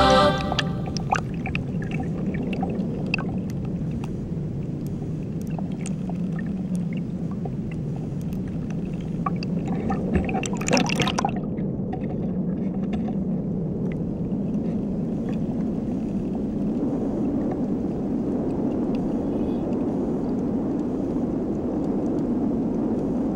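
Underwater sound picked up by a camera on a speargun: a steady low rush of water, with scattered small clicks and a short, louder burst of noise about ten seconds in.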